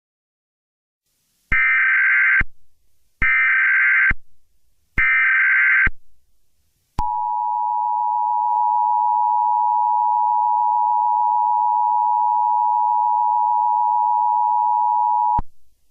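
Emergency Alert System tones: three separate bursts of warbling SAME data header, each just under a second long, then the steady two-tone EAS attention signal held for about eight seconds before it cuts off suddenly.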